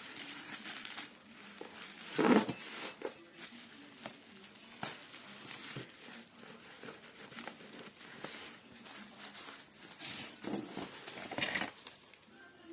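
Irregular crinkling and rustling of something being handled, with scattered clicks and knocks; the loudest knock comes about two seconds in. No motor is running.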